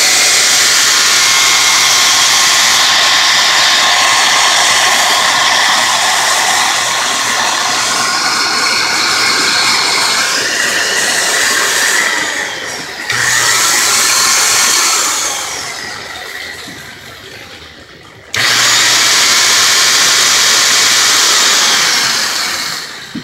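Electric grinder motor running at full speed, then cutting out and winding down, restarting suddenly twice as the power cord is twisted. The intermittent power is the sign of a broken wire inside the cord.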